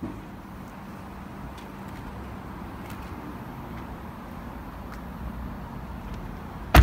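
A Lamborghini Huracán's door being shut: one short loud thump near the end, over a steady low rumble.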